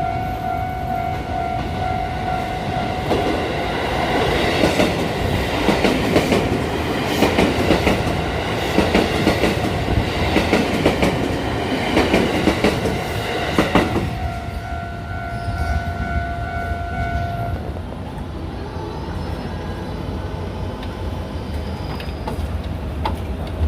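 A six-car 281 series Haruka electric train passes over a level crossing, its wheels clacking over the rail joints for about ten seconds. Around the passage the crossing's warning signal rings steadily, and it stops about three seconds after the train has gone by.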